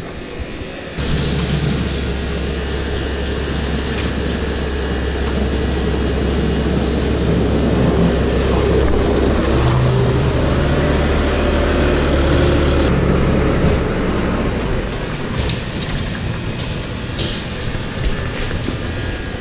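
An engine running steadily. It comes in abruptly about a second in and drops away after about thirteen seconds, leaving a rougher, changing mechanical noise.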